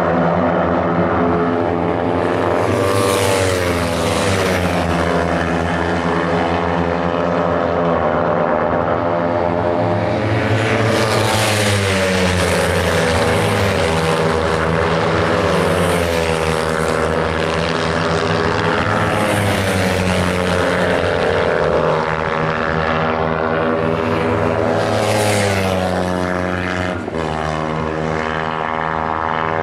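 A field of Kawasaki Ninja 300 race bikes, their parallel-twin engines held high in the revs, going past one after another. The engine notes rise and fall in pitch as each bike passes, with several loud close passes.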